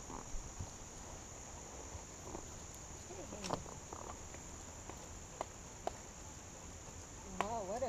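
Steady high-pitched drone of insects, with a few scattered clicks and a brief wavering pitched sound about three and a half seconds in and again near the end.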